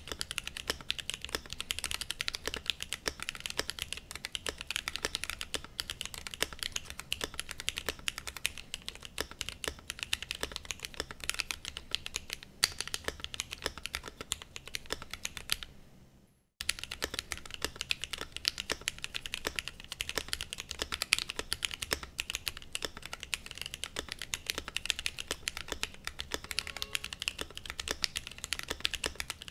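Continuous fast typing on a Glorious GMMK Pro mechanical keyboard with lubed and filmed Gateron Black Ink V2 linear switches and PBT Cherry-profile keycaps: a dense stream of keystroke clacks. The typing stops for a moment about halfway through.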